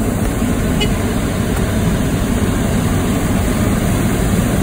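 Hot air balloon's propane burner firing continuously into the envelope during inflation: a loud, steady burner noise without a break.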